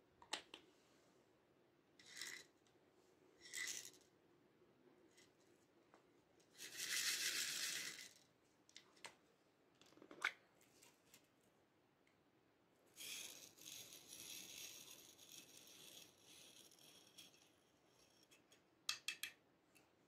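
Faint clicks and taps of small plastic bottles and a container being handled, then a few seconds of rattling as tiny plastic beads are shaken out of a small plastic container into a slime-filled glass dish, with a few quick clicks near the end.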